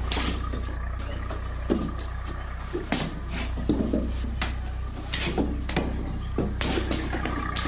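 Irregular knocks and taps from hand work on sky-shot firework shells, over a steady low hum.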